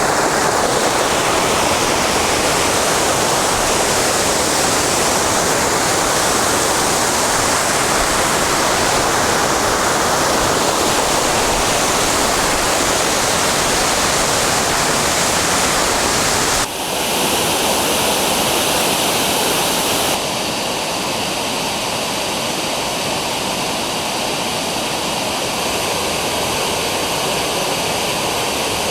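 Dzhurinsky waterfall: water pouring down with a steady, loud rushing roar. The sound changes abruptly about 17 seconds in and again about 20 seconds in, becoming a little quieter and thinner.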